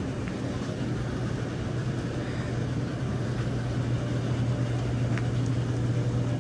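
Steady low hum of a grocery store's background noise, with a faint click about five seconds in.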